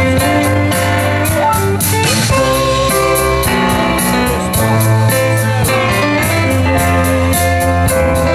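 Live rock band playing: electric guitars over keyboard and drum kit, with the cymbals keeping a steady beat of about four strokes a second.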